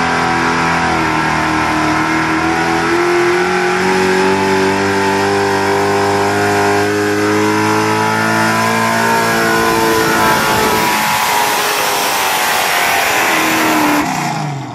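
Pickup truck engine held at high revs while dragging a weight-transfer pulling sled; the pitch climbs slowly as the truck pulls, then falls away over the last few seconds as the sled's load brings it to a stop. The sound drops off suddenly just before the end.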